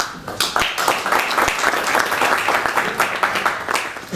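Audience applauding, a dense spatter of many hands clapping that dies away near the end.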